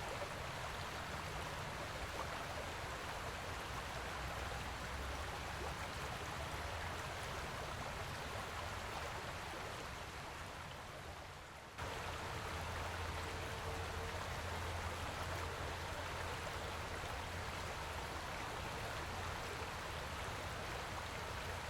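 Steady rushing of flowing stream water. It fades down and then cuts back in abruptly about twelve seconds in.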